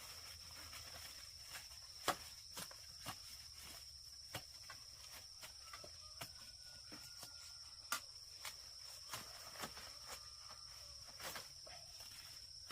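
Steady high-pitched trill of insects, with scattered soft knocks and rustles of footsteps through vegetation; the loudest knocks come about two seconds in and again about eight seconds in.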